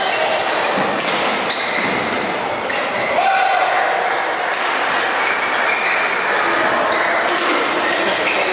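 Badminton rally in a large hall: a few sharp racket hits on the shuttlecock and short squeaks of shoes on the court mat, over the steady noise of the hall.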